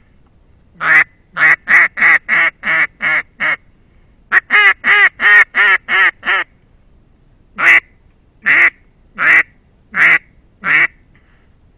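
Wooden Russian Custom Calls duck call blown in quacks, given throat for a slightly raspy tone: a quick run of about eight quacks, a second run of about eight, then five slow single quacks.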